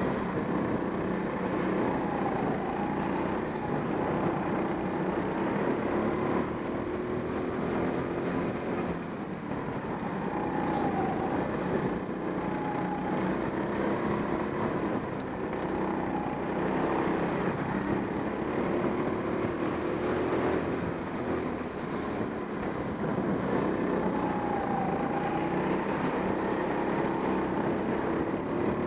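Racing go-kart's motor heard from onboard, running steadily at speed, its pitch dipping and rising again several times.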